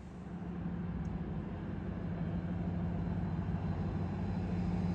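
Steady low engine drone that swells in over the first second and then holds an even pitch.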